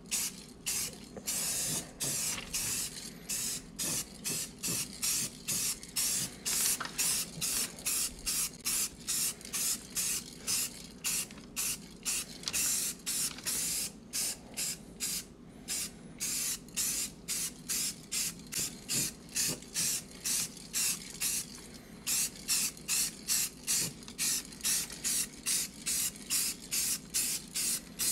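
Aerosol spray can of off-white Tremclad paint hissing in short, even bursts, about two a second, with brief gaps between them.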